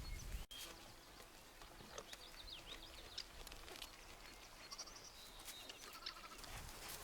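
Faint outdoor ambience with small birds chirping, with a few short downward-sweeping calls and quick trills.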